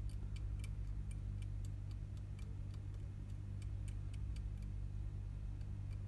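Small metal blade scraping the solder mask off a trace on an iPhone 7 logic board, heard as a run of small sharp ticks a few times a second, unevenly spaced, over a steady low hum. The trace is being bared so that a jumper wire can be soldered on to restore the home button connection.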